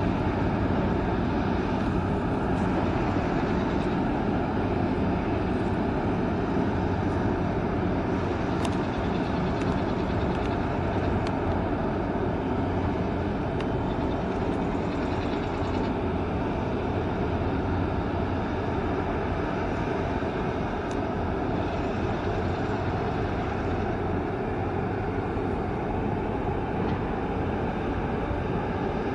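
Steady low rumble with a faint hum underneath: the engine drone of the container ship EVER COMPOSE under way close by, with no change through the passage.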